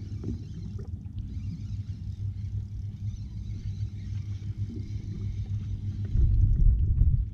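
Steady low rumble and hum aboard a small fishing boat drifting on calm water. About six seconds in it swells into a louder, deeper rumble for about a second.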